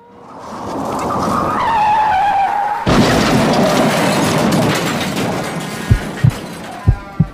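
Car tyres screeching with a wavering high squeal, then a sudden loud crash about three seconds in that fades away over a couple of seconds: a car-collision sound effect. A few short dull thumps follow near the end.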